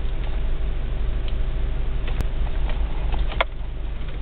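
Steady low rumble of a car heard from inside the cabin, with a couple of sharp clicks, one about two seconds in and a louder one near the end.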